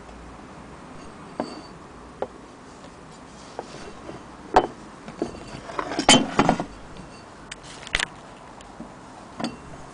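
Irregular clicks and knocks from an antique cast-iron sewing machine hand crank being handled and turned over, loudest in a quick run of clinks about six seconds in.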